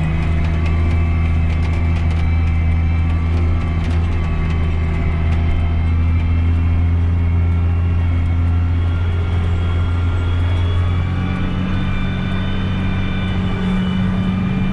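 A tractor's diesel engine running steadily while pulling an anhydrous ammonia applicator bar. Its note changes about eleven seconds in.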